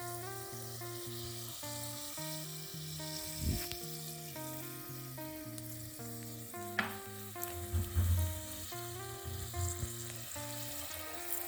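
Pastry dough deep-frying in hot oil, sizzling steadily as it puffs and cooks, with a few dull knocks partway through.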